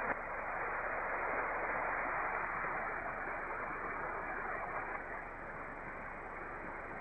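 Static and band noise from an HF transceiver's speaker tuned to single sideband on the 15-metre band: a steady, muffled hiss with nothing above the receiver's narrow voice filter, and one short click just after the start.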